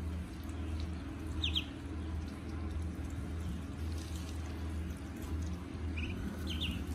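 Ducklings peeping: a pair of short, high, falling peeps about a second and a half in, and a few more near the end, over a steady low hum.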